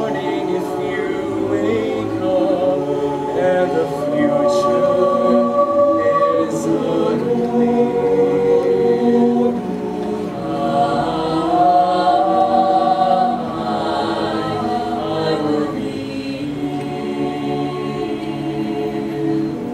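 A choir singing, with long held notes.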